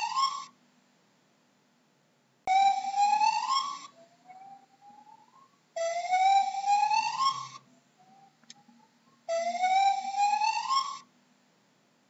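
Gibbon calling: a series of loud rising whoops, each about a second and a half long and coming about every three and a half seconds. Softer, shorter rising notes come in between.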